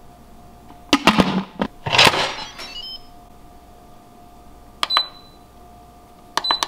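Instant Pot electric pressure cooker: the lid clanks about a second in and scrapes as it is put on and turned shut, then the control panel beeps as its buttons are pressed to set the cooking time, one beep near five seconds and a quick run of beeps near the end.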